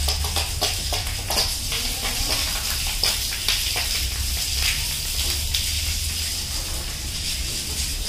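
A pressurised water jet from a hose nozzle spraying and splashing steadily onto a window air conditioner's fan shroud and condenser fins to wash out dirt, a continuous crackling hiss with a steady low hum beneath it.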